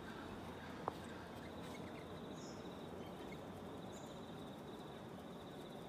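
Faint outdoor background ambience with a thin, steady high-pitched tone running through it, a single soft tap about a second in, and two brief, faint high bird chirps in the middle.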